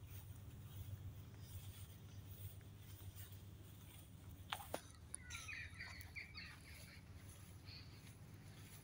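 Faint outdoor ambience with a steady low rumble; two sharp clicks about halfway, then a bird calls briefly in a quick run of chirps.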